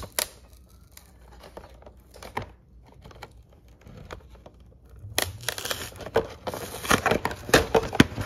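A Pokémon card collection box being opened: a few scattered snips and clicks, then from about five seconds in a louder, continuous tearing and crinkling of the packaging.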